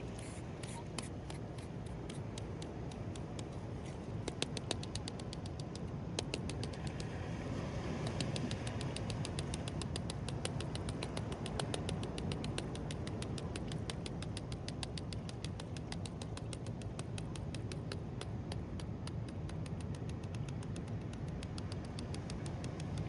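Sand being scratched: a rapid, even run of fine scratches over a steady low rush.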